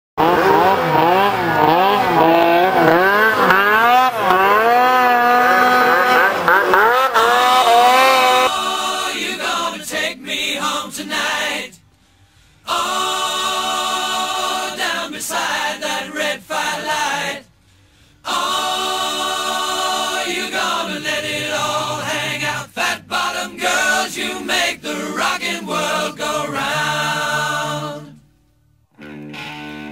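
Music soundtrack. It opens with a wailing, wavering vocal line for about eight seconds, then a band with drum hits comes in. The music stops dead briefly three times.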